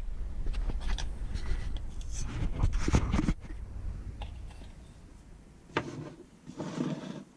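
Rubbing and scraping handling noise with scattered clicks and knocks, heaviest in the first three seconds, then a few quieter clicks and a short rustle near the end.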